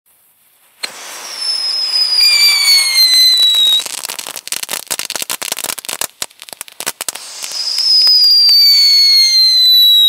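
Firework fountain whistling and crackling. It starts suddenly about a second in with a whistle that slowly falls in pitch. This breaks into a run of sharp crackles through the middle, then a second falling whistle cuts off suddenly at the end.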